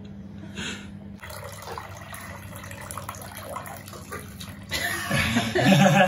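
Water pouring from a plastic jug into a bath, a steady splashing wash of water, with a voice vocalising near the end.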